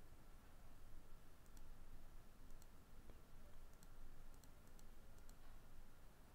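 Faint, scattered computer mouse clicks, several over a few seconds, over a low steady background hiss.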